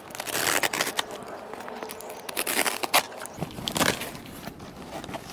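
Brown packing tape and wrapping being torn and crinkled off a cardboard parcel: irregular crackling and rustling, with a longer tearing stretch about half a second in and a sharp snap about three seconds in.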